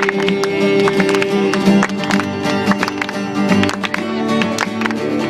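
Acoustic guitar strumming the chords of a Spanish worship chorus, with repeated strums over sustained chords.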